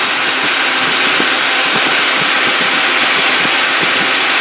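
Steady, even whooshing noise of a car's running engine bay: the engine idling with the AC on and its cooling fan running, while the AC system is being charged with R-134a refrigerant from a can.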